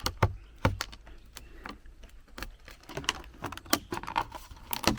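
Vinyl soffit being cut and worked with a razor-blade knife: irregular sharp clicks and plastic snaps, the loudest about a second apart near the start and again near the end.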